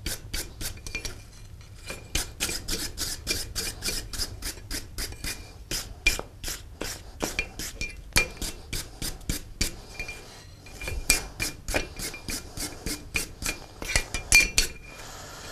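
A steel wire brush scrubbing back and forth over a forged iron horseshoe held in tongs on an anvil. Quick rasping strokes come about three or four a second, each with a light metallic ring, pausing briefly twice. The freshly filed horseshoe is being cleaned up.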